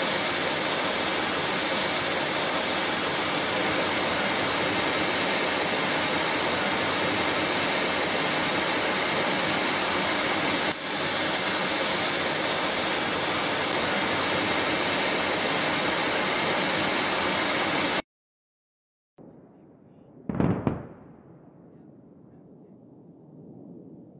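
Steady, loud rushing noise of jet aircraft in flight, with a brief break about eleven seconds in. It cuts out suddenly, and a few seconds later a single short bomb-blast boom sounds and fades away.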